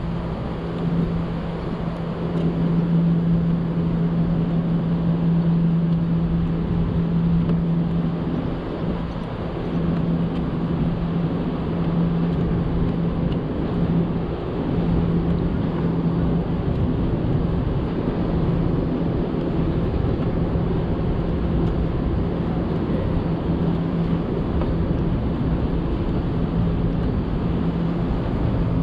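Harbourside city ambience: a steady low mechanical hum over a continuous rumble of distant traffic.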